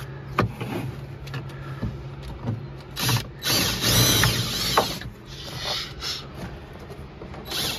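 Cordless drill drilling out the rivets that hold a body panel, with short clicks and knocks. The loudest stretch of drilling starts about three seconds in and lasts nearly two seconds.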